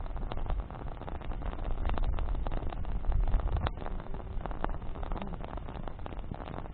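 Wood campfire burning, its branches crackling and popping over a low rumble of flames, with one sharper pop about three and a half seconds in.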